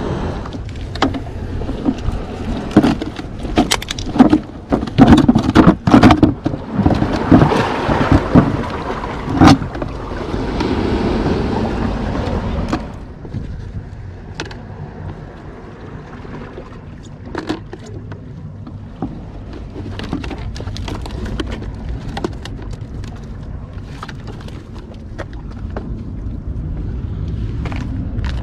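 Close handling noises from a freshly caught catfish and fishing gear: a dense run of knocks, clatters and rustles for about the first half. It then eases to a low steady rumble of wind on the microphone with occasional light knocks.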